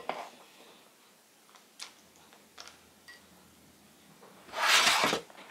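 Small clicks and taps of muffin batter and chopped pecans being put into a metal muffin tin, with a sharp click at the start. A louder rush of noise, about half a second long, comes near the end.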